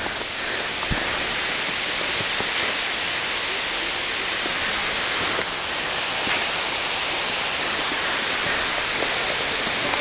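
Steady rushing of a waterfall, an even hiss without pauses, with a few faint footfalls on a dirt trail.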